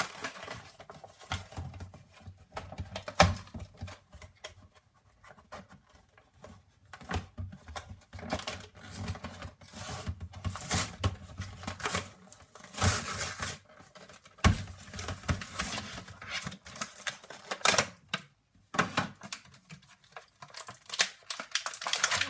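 An action figure's clear plastic blister packaging being handled and pulled open by hand: irregular crinkling and crackling with many sharp clicks and a few louder snaps.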